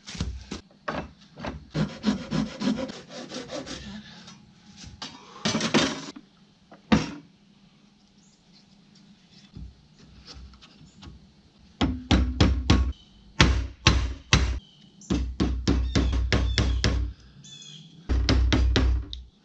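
Rubber mallet striking a wooden axe handle and wedge, seating a restored axe head that fits very tightly. The blows come as several bursts of quick, thudding strikes in the second half, after scattered knocks and handling noises in the first seconds.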